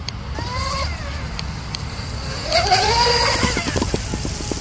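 Twin brushless electric motors (Rocket 3670, 1850 kV) of an RC speedboat running at speed, with a whine that rises in pitch as the boat passes close about two and a half seconds in, loudest there, along with the hiss of its spray. A run of short clicks follows the pass.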